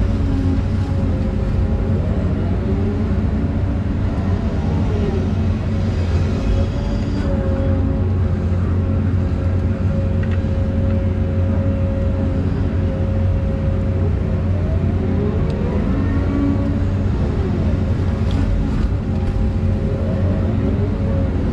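Volvo EC220E excavator working: the diesel engine runs steadily under a constant whine, whose pitch bends up and down a few times as the machine moves. A few light clicks near the end.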